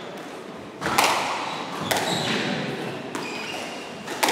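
Squash ball struck by rackets and smacking off the court walls during a doubles rally: four sharp hits about a second apart, each ringing briefly in the enclosed court, with short high squeaks of shoes on the wooden floor between them.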